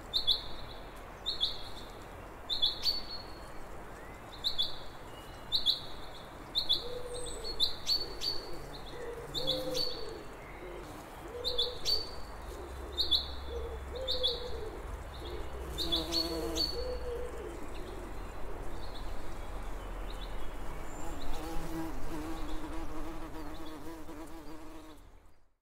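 Birds chirping, a short high note repeated about once a second, with a lower wavering buzz joining in from about seven seconds in and carrying on near the end.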